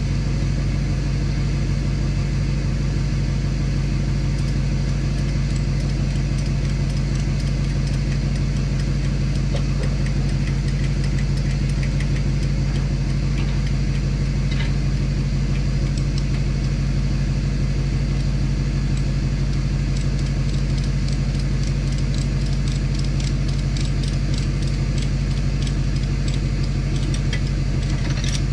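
An engine running steadily at a constant speed, with light ticking and rattling over it that grows busier in the later part.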